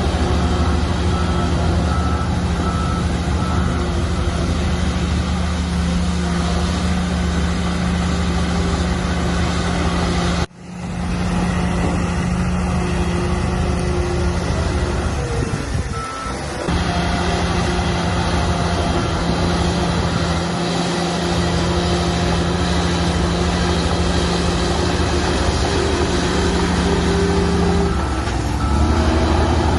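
Heavy diesel engine of earthmoving machinery running steadily under load, its pitch dropping briefly about halfway through and again near the end. An intermittent high beeping, like a reversing alarm, sounds at the start and near the end.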